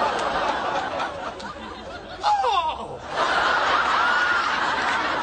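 Sitcom studio audience laughing, dipping about two seconds in and swelling back loudly about a second later.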